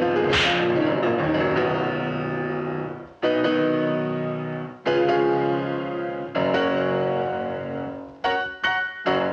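Piano playing loud, full chords, each left to ring and fade. There is a crash-like splash about half a second in, big chords struck about every second and a half in the middle, and a run of short, quick chords near the end.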